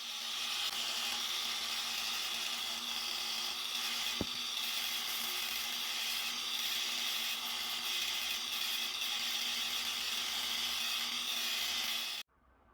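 A power tool running steadily, then stopping abruptly near the end.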